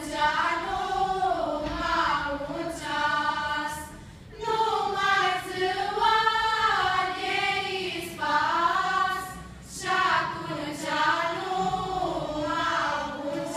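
Choir of women and children singing unaccompanied, in long phrases with short breaks about four seconds in and near ten seconds.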